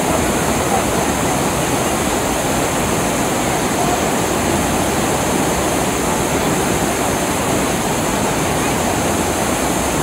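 Whitewater river rapids rushing over boulders: a loud, steady wash of water noise.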